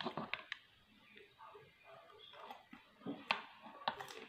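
A fork clicking against a plastic bowl of fennel salad, a few sharp ticks at the start and again about three seconds in, then quiet chewing of a crunchy mouthful.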